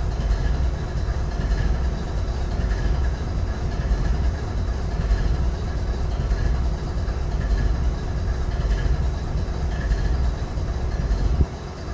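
GE ES40DC diesel-electric locomotive's GEVO-12 four-stroke V12 diesel idling: a steady low rumble with a steady higher hum over it, dipping briefly near the end.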